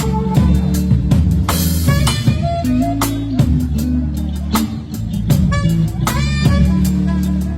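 Live band playing an R&B groove at sound check: drum kit keeping a steady beat under bass and guitar.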